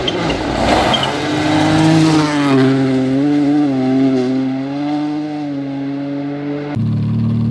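Toyota GR Yaris rally car's turbocharged three-cylinder engine driving hard along a gravel road, the revs rising and falling as it approaches and passes. Near the end the sound switches abruptly to a steadier engine note.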